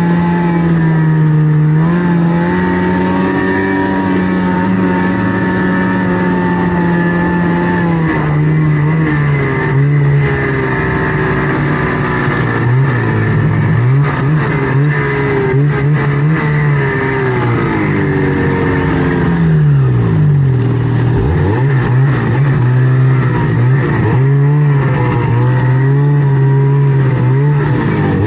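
Snowmobile engine running under throttle, its revs rising and falling over and over, with a sharp drop and pick-up about twenty seconds in.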